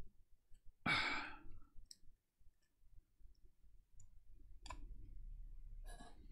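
A person sighs about a second in, then a few faint clicks as a hard drive's stiff controller circuit board is worked loose from the drive by hand.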